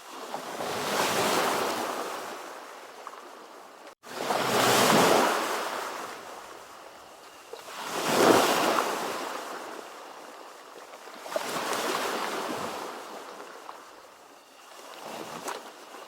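Ocean waves breaking and washing in, five swells of surf that each rise and fade, one about every four seconds. There is a brief dropout about four seconds in.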